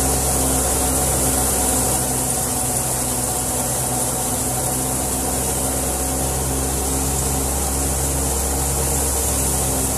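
Tractor-driven wheat thresher running at steady speed: a constant low mechanical drone with a strong high hiss over it.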